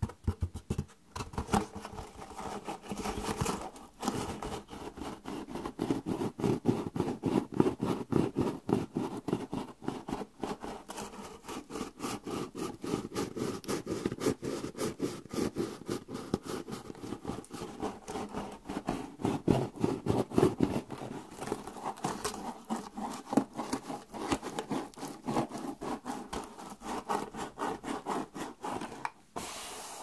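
Fast scratching and tapping on a box close to the microphone, many strokes a second, stopping shortly before the end.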